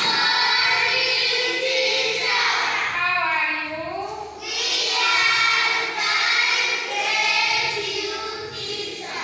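A class of young children singing a song together, in phrases of held notes with short breaks between them.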